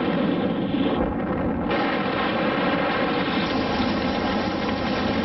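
Steady drone of aircraft engines, a dense continuous roar with no distinct explosions, dubbed over archival naval battle footage.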